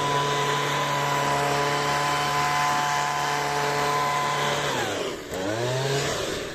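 Leaf blower running steadily at full speed, then easing off about five seconds in, revving up briefly and dropping away again near the end.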